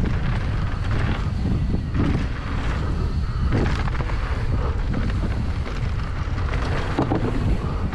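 Wind buffeting the microphone as a downhill mountain bike rolls fast down a dirt jump trail, with irregular knocks and rattles from the bike and tyres over the ground.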